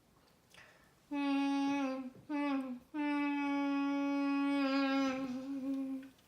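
A child's voice humming one steady note three times, a long one, a short one, then a long held one, imitating a locomotive horn.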